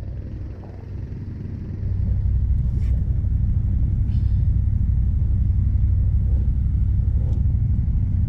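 Wind buffeting the camera microphone: a steady low rumble that dips over the first couple of seconds, then returns to full strength.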